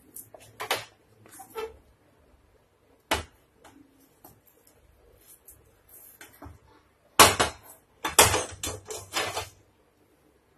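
A spatula scrapes and knocks against a nonstick kadhai and a steel plate as thick cooked lauki barfi mixture is emptied out for setting, with clunks of the pan. There is a sharp knock about three seconds in, and the loudest clatter comes a little past the middle, followed by a quick run of knocks and scrapes.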